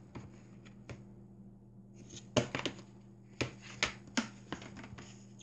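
Scattered light clicks and taps of hands handling a book and its disc, most of them in the second half, over a faint steady low hum.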